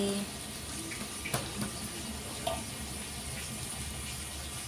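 Thick egg omelette frying in hot oil in a wok: a steady sizzle, with one sharp click about a second in.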